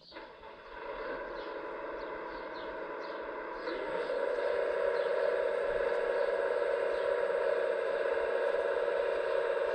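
Hydraulic pump of an RC model excavator whining steadily, with a few light clicks in the first seconds; it steps up louder about four seconds in as the pump comes under more load.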